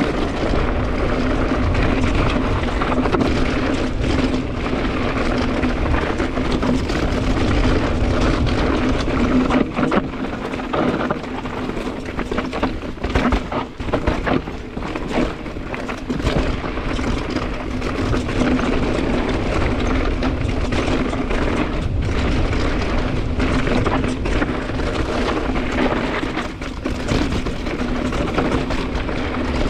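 Pivot Trail 429 mountain bike ridden down a trail: wind on the microphone and tyres rumbling over dirt, with many knocks and rattles as the bike takes hits, and a steady hum running under it.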